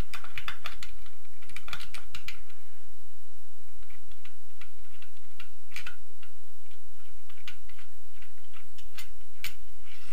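Light, irregular metallic clicks and taps as a 10 mm bolt is worked out of a motorcycle cylinder head by hand and lifted clear.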